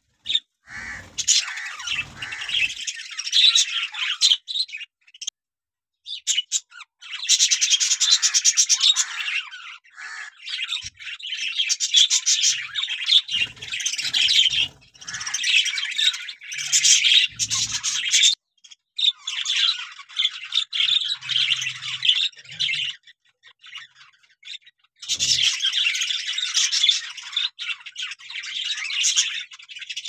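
Budgerigars chattering and squawking in a dense, rapid, scratchy stream, in several bouts broken by short pauses.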